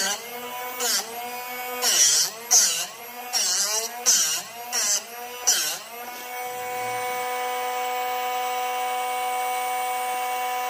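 Drill Doctor drill-bit sharpener's motor running steadily while a drill bit is turned back and forth against its diamond grinding wheel: about seven short grinding rasps in the first six seconds, the motor's pitch dipping with each, then the motor running on freely once the grinding stops.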